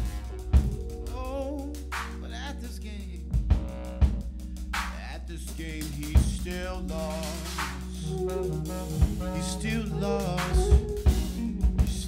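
Live jazz band music: a drum kit with sharp snare and rimshot hits over electric bass and guitar, with a man singing into a microphone.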